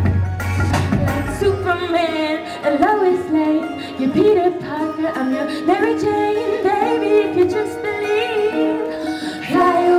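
A woman singing a pop vocal into a microphone, amplified over backing music. The heavy bass drops out about a second and a half in, leaving the voice with lighter accompaniment.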